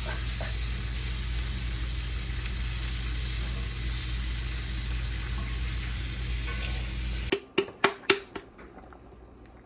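Food sizzling as it fries in a pan, a steady hiss that cuts off abruptly about seven seconds in. A few short sharp clicks follow.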